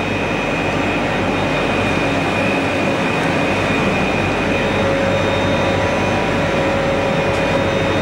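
Boiler-room machinery running: a steady, constant rushing drone with a faint high whine held through it.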